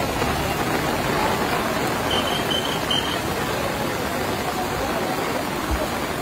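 Fast-flowing floodwater rushing and churning across a road, a loud, steady rush of water.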